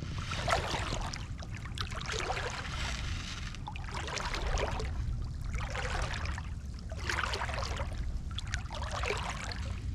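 Water sloshing and swishing in about five slow surges, roughly one every two seconds, over a steady low rumble.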